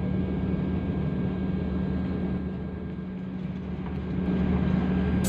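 Airliner cabin noise while taxiing: a steady jet-engine hum with a strong low drone, heard from inside the cabin, growing a little louder near the end as the plane lines up on the runway.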